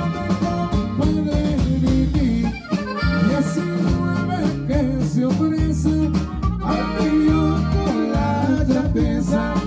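Live norteño band playing, with a diatonic button accordion carrying the melody over a drum kit and a steady bass line. The music dips briefly about two and a half seconds in.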